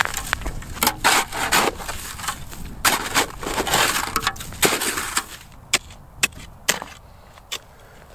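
Snow and ice crunching and scraping as an ice-fishing hole is dug and chopped open with an ice chisel. About two-thirds of the way in, the crunching gives way to a few single sharp knocks of the chisel on ice.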